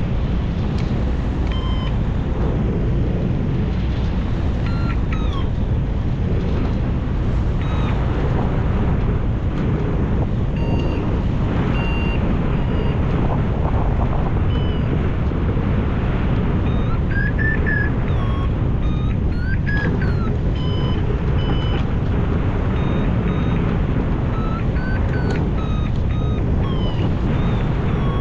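Steady rush of airflow over the microphone, with a variometer beeping over it: short beeps that change in pitch, some sliding up and down, which a variometer gives when it senses the glider climbing in lift.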